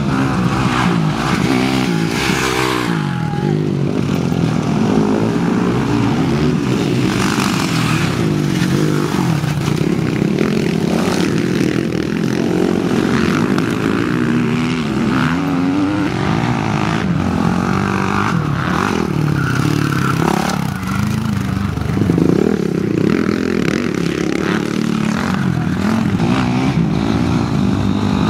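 Several motocross bikes racing on a dirt track, their engines revving up and down continuously with the pitch rising and falling.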